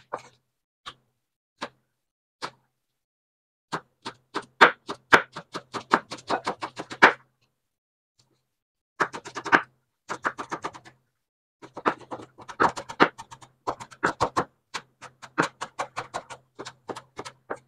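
Knife chopping on a cutting board. A few single strikes come first, then quick runs of about five chops a second, with two short pauses.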